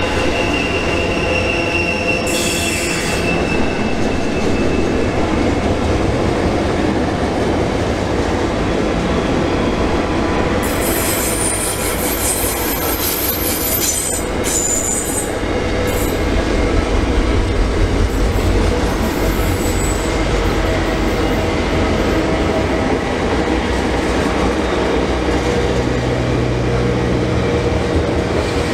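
Freight train box and louvre wagons rolling slowly round a tight S-bend, a steady rumble of wheels on rail. High-pitched wheel squeal from the curve comes in briefly about two seconds in and again, louder and longer, from about ten to sixteen seconds in.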